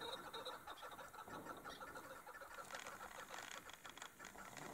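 Chukar partridge calling: a faint, fast series of clucking chuck notes that grows sharper and more clicking about halfway through.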